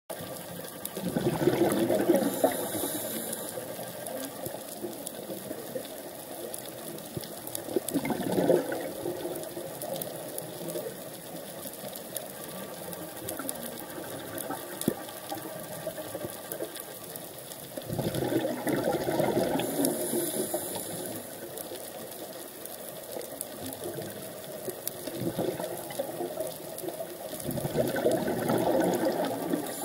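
Scuba diver's exhaled breath bubbling out of the regulator, a gurgling rush of bubbles four times, every eight to ten seconds, with a steady fine crackling underwater between the breaths.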